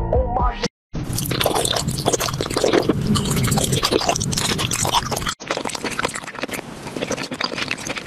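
Close-up eating sounds of gummy candy being bitten and chewed: wet squishing and crunching in a dense run, broken by a short cut about five seconds in.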